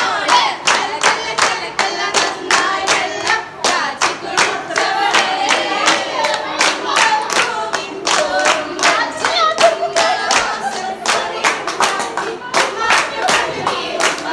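A group of women singing together while clapping their hands in a steady rhythm, about three claps a second.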